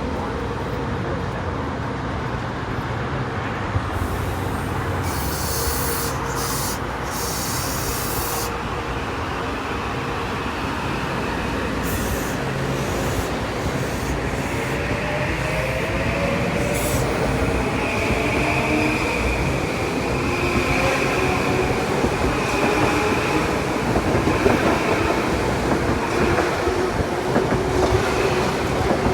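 A train rolling past, its wheels running on the rails with a steady rumble. A thin wheel squeal comes in past the middle.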